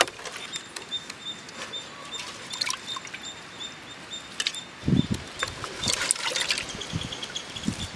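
Water trickling and splashing lightly, with scattered small clicks and knocks and a few low thuds about five seconds in.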